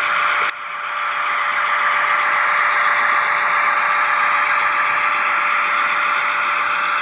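Model diesel locomotive X35 running past with its train of wagons, giving a steady engine-like drone with wheel and rail noise. The sound breaks off for an instant about half a second in, then builds back up.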